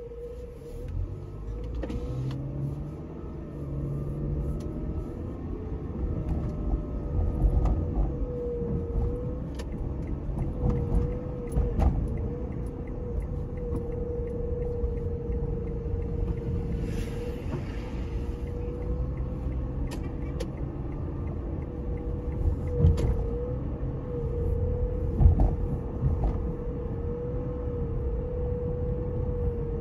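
Car engine and road noise heard from inside the cabin, a low rumble that grows louder over the first several seconds as the car pulls away and gets moving, with a few sharp knocks from bumps. A thin steady whine runs under it throughout.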